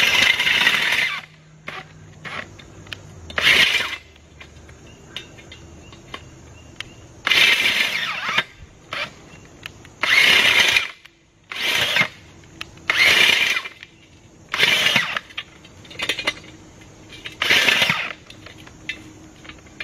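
Makita cordless earth auger's electric motor driving the spiral bit into grassy ground, run in short bursts on the trigger: one run that ends about a second in, then seven brief bursts of under a second each with quiet gaps between. The twin batteries are nearly flat.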